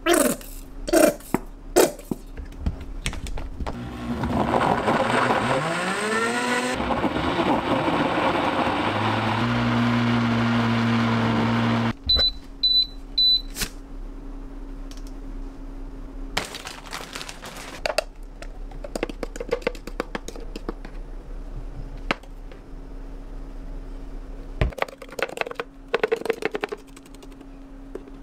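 A kitchen appliance's electric motor spins up with a rising whine, runs steadily for several seconds and stops abruptly, followed by three short electronic beeps. Scattered clicks and knocks of handling come before and after.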